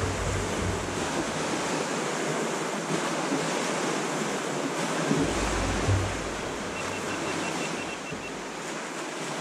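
Steady rushing of wind and choppy boat-wake water around a small anchored fishing boat, with wind buffeting the microphone as a low rumble about five seconds in.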